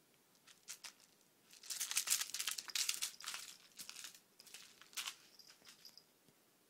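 Crinkling, rustling scuffles on bedding as a cat pounces on and wrestles a fluffy string toy, in irregular bursts that are densest and loudest about two to three and a half seconds in.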